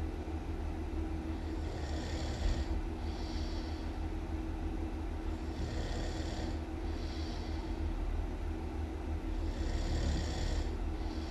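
A person snoring loudly in a slow, regular rhythm, one breath cycle about every four seconds. Each cycle is a longer hissing breath followed closely by a shorter one, over a steady low rumble.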